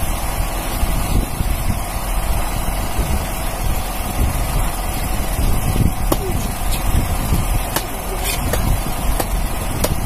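Fishing boat's engine running steadily, with wind noise on the microphone. From about six seconds in, several sharp knocks as the gaffed tuna is hauled up against the hull.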